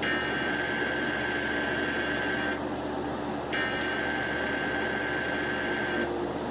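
Emergency Alert System digital header: two long bursts of buzzing, screechy data tones, each about two and a half seconds, with about a second's pause between them, over a steady hiss and hum.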